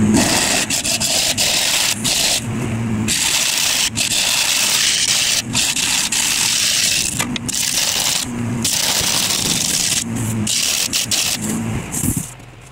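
Turning tool cutting into a large spalted gumbo limbo blank spinning on a wood lathe: a loud hissing scrape as the shavings come off, in a series of passes with brief breaks. It stops near the end as the tool comes off the wood.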